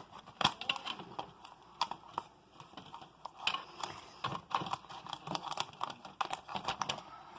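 Irregular light clicks, taps and crinkles of hands handling plastic food packaging.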